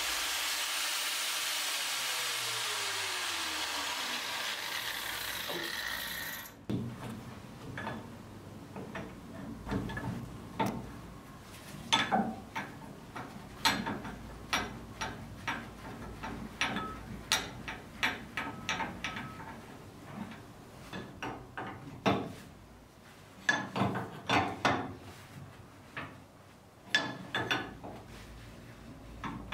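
An angle grinder's hiss with its motor pitch falling as it winds down, cut off about six seconds in. Then scattered clicks, knocks and ratcheting of hand tools on the metal fittings of a seized sea strainer being worked loose.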